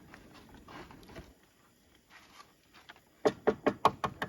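A quick run of about seven sharp knocks or taps near the end, roughly five a second, after a few seconds of quiet handling sounds.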